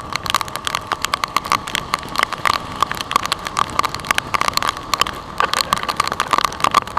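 Raindrops striking the helmet-mounted camera's housing in a dense, irregular run of sharp ticks, over the wind and road noise of a motorcycle riding through heavy rain.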